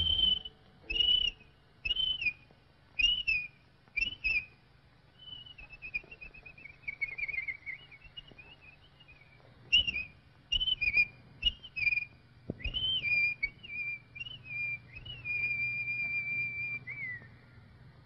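A cartoon bird's whistled calls: short rising-and-falling whistles about once a second, then a wavering run that falls in pitch, more short whistles, and near the end one long held whistle that drops away.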